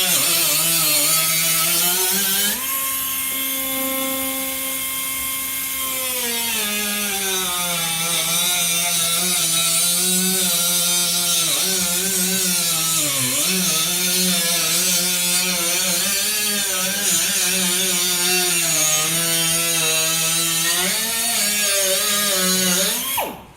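Power cutting tool cutting through rusted automotive sheet metal: a steady high-speed drone whose pitch dips and recovers as it bites under load, then stops abruptly near the end.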